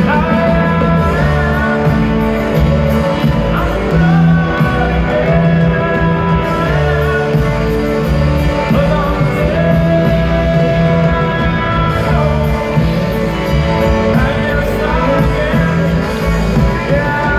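Live country-rock band playing in an arena: drums, bass and guitars under a wavering, sustained lead melody, heard from the crowd.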